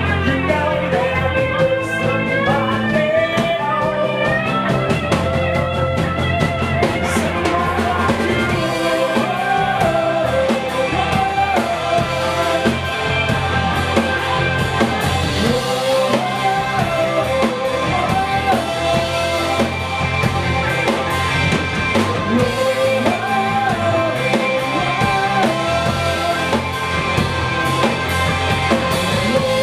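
Live rock band playing: electric guitars over bass and a drum kit.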